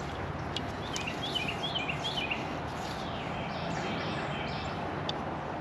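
Small bird chirping a quick run of short, falling notes over a steady outdoor background hiss, with a few faint ticks.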